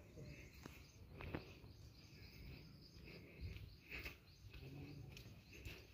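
Faint outdoor ambience: insects, likely crickets, keep up a steady high-pitched chirring, with a low rumble and a few soft knocks.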